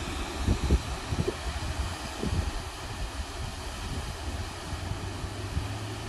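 Steady rush of a small waterfall pouring over a rock ledge into a plunge pool, with gusts of wind buffeting the microphone, strongest in the first couple of seconds.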